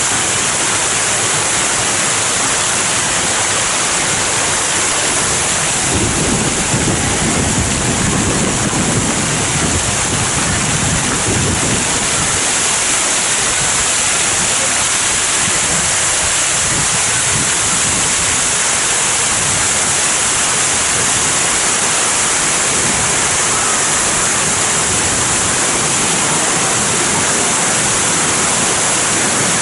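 Water from a fountain-and-waterfall show cascading and splashing in a steady, loud rush, with a heavier, deeper surge for a few seconds about six seconds in.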